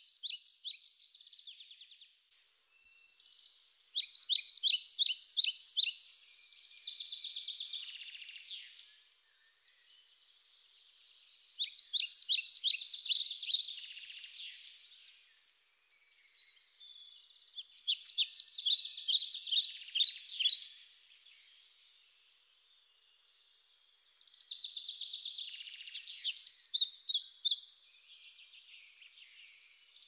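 Rainforest birds calling: bouts of rapid, high chirping notes, each lasting two to three seconds and repeating about every six seconds, with quieter chirping between them.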